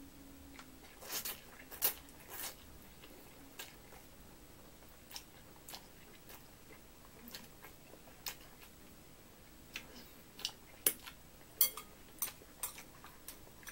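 A person eating noodles with chopsticks from a glass bowl: brief slurps near the start, then quiet chewing and scattered short clicks and smacks, some from the chopsticks tapping the bowl near the end.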